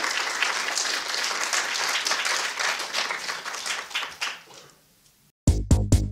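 Audience applauding, the clapping dying away about four to five seconds in. After a brief gap, electronic music with heavy bass hits starts abruptly near the end.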